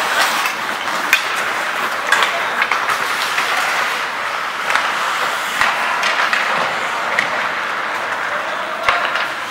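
Live ice hockey play: a steady scraping hiss of skates on ice, broken by sharp clacks of sticks and puck every second or so, with indistinct voices.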